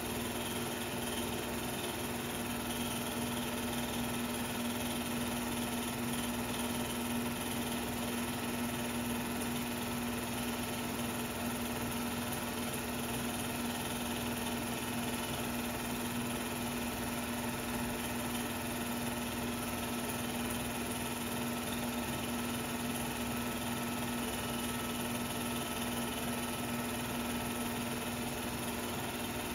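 16mm film projector running: a steady mechanical hum with one strong low tone over an even whirring hiss, unchanging throughout, with no game sound.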